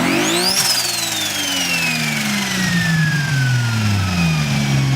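Turbocharged car engine blipped once. A high turbo whistle rises sharply with the revs, then both fall slowly for about four seconds as the engine drops back to a steady idle.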